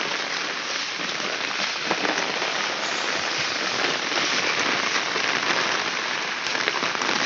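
Heavy rain pouring steadily onto a flooded street, an even, dense hiss of falling drops.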